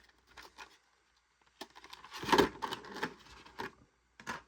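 Plastic packaging trays being handled: crackling and clicking, loudest about two and a half seconds in, with a sharp click near the end.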